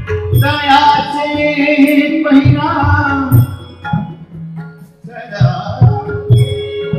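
Live Indian devotional song: a voice sings a long, wavering phrase over harmonium, with regular tabla strokes underneath. The music drops back for a moment a little past halfway, then the harmonium and tabla pick up again.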